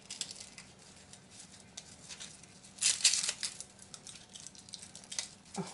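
Dry, papery garlic skins crackling and tearing as the outer layer is peeled off whole garlic heads by hand. Small crisp crackles, with a louder flurry about three seconds in.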